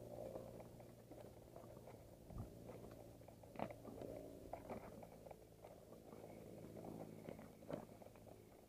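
Faint rattling and scattered knocks of a mountain bike jolting over a rough dirt and rock trail, over a steady low hum.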